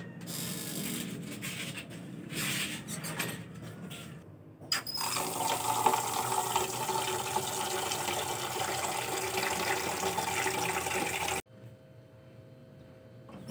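Tap water running steadily into a metal rice-cooker pot, filling it. It starts a few seconds in, after quieter scattered sounds, and cuts off suddenly near the end.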